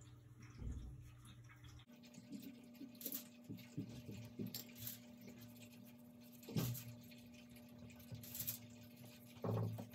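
Faint scraping and soft taps of a paintbrush working paint onto paper, with a few sharper ticks, over a low steady hum that comes in about two seconds in.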